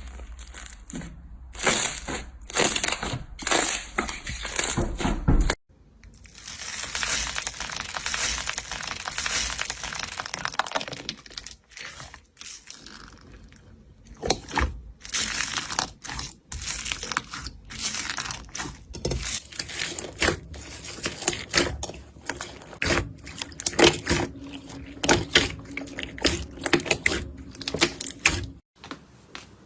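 Slime being squeezed, stretched and poked by hand, giving dense runs of crackling and popping clicks. The texture changes abruptly several times.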